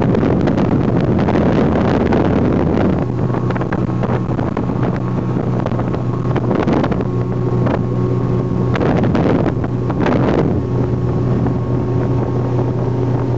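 Motorboat engine running steadily at speed, with wind buffeting the microphone and water rushing past the hull. The wind rush is heaviest at first and eases about three seconds in, leaving the steady engine hum clearer.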